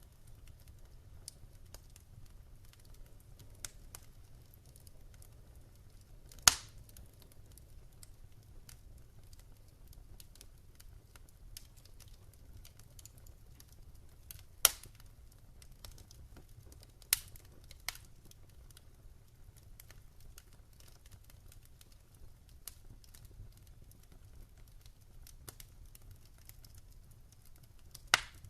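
Wood fire in a fire pit crackling, with scattered faint ticks and a few sharp pops, the loudest about six seconds in and another near the middle, over a low steady rumble.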